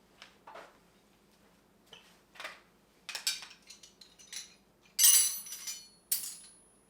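Metal hand tools clinking and clattering as they are handled and set down. It is an irregular string of clinks, with the loudest, ringing one about five seconds in.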